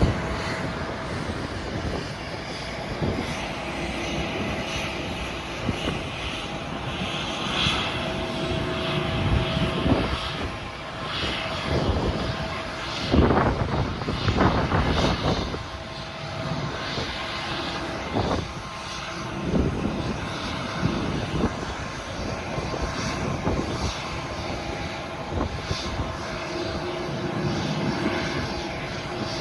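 Jet airliner engines running at an airport, a continuous rumble with a faint steady whine that fades in and out, and several brief louder noises around the middle.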